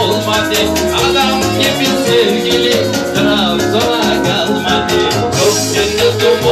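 Live folk-pop band music amplified through a PA: electronic keyboard and stringed instrument over a fast, steady beat, with a wavering lead melody.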